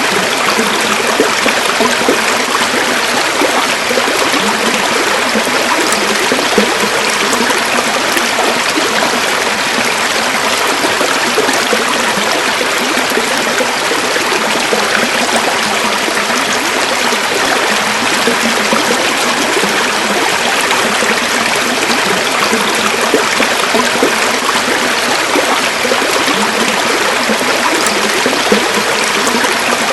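River water flowing and splashing over stones, a steady rushing with fine gurgling flutter.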